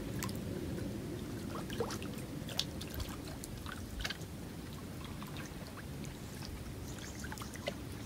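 Light water sounds from a small boat on a river: a steady low wash with small, irregular splashes and trickles, as a bait fish on a bamboo pole is drawn across the surface.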